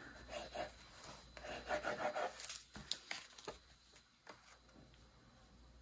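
Soft rubbing and scraping of a Tombow liquid glue bottle's tip on cardstock, along with cardstock pieces being handled. It is a run of short scrapes and a few light clicks over the first three seconds or so, then it fades to faint handling.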